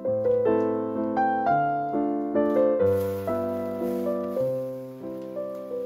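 Background piano music: notes struck one after another and dying away, over bass notes that change about once a second.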